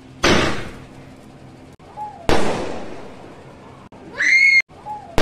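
A mini sky shot firework firing its shots into the air: three sharp bangs about two seconds apart, each trailing off over about a second. A short rising whistle sounds a little after four seconds in.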